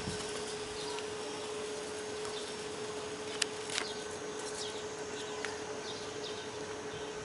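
Steady hiss with a faint constant hum, broken by a few sharp clacks, the clearest about three and a half seconds in.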